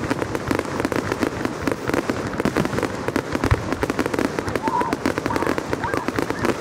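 Fireworks going off in a fast, unbroken string of sharp bangs and crackles, with one deeper boom about three and a half seconds in.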